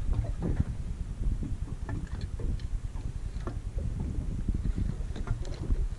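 Wind buffeting the microphone on an open boat, an uneven low rumble, over water moving against the hull, with a few faint light clicks scattered through it.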